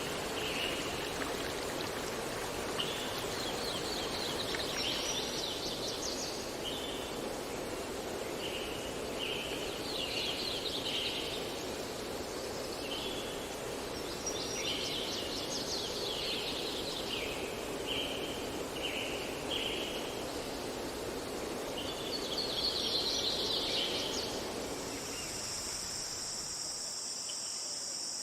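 Songbirds singing short trilled phrases every few seconds over a steady rush of flowing water. Near the end the water fades out and a steady high insect buzz, like crickets, comes in.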